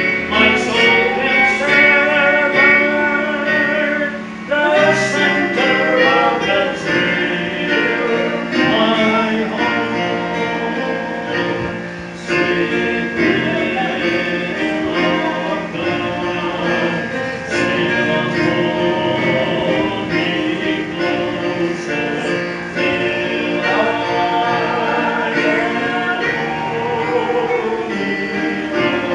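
A man and a woman singing a hymn together as a duet, with keyboard accompaniment.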